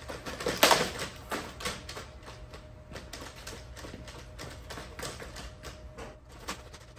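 A quadruped robot's feet tapping rapidly and irregularly on a hard floor as it steps to keep its balance against pushes, with a louder knock about half a second in.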